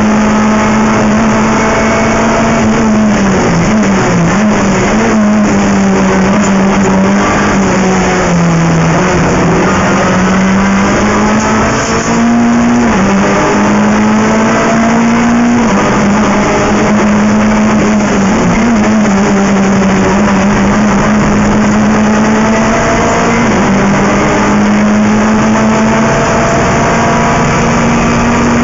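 Renault Clio III Cup race car's four-cylinder engine at racing speed, heard loud from inside the cockpit over wind and road noise. The engine note holds mostly steady, dips a few times and climbs back, and jumps up and back down twice.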